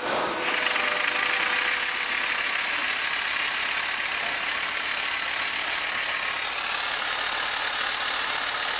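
Pneumatic air motor driving the stirrer of a glass-vessel mixer, starting just after the air is opened and then running steadily with an even hiss of exhausting air.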